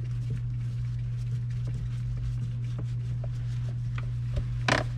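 Small clicks and ticks of a screwdriver working a Phillips screw out of plastic centre-console trim, with a brief, louder clatter of clicks near the end, over a steady low hum.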